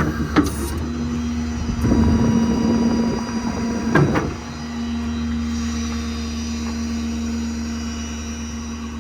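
Ford F-550's 6.7 Power Stroke diesel engine idling steadily, with two sharp knocks, one just after the start and one about four seconds in, and a stretch of clattering handling noise between them.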